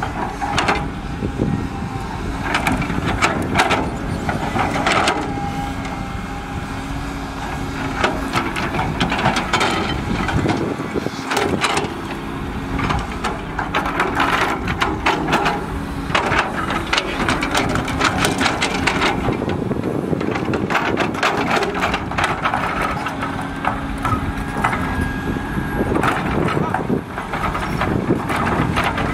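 Diesel engines of a dump truck and a CAT 320D excavator running at work while the truck tips a load of soil. There is a steady whine over the engine noise and many sharp knocks and clatters throughout.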